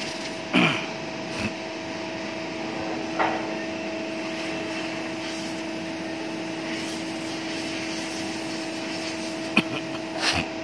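A steady machine hum on two constant pitches while the suspended steel foundry ladle tilts, with a few short knocks from the ladle and its tilting gear, one about half a second in with a brief falling creak, another about three seconds in, and a pair near the end.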